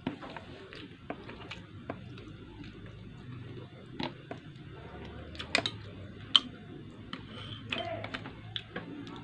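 A person eating by hand: chewing, with scattered sharp clicks and smacks of mouth and fingers. The loudest click comes a little after the middle.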